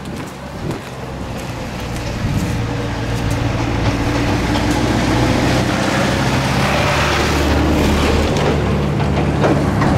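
A road vehicle's engine running close by with a low drone, growing louder over the first few seconds and then holding steady.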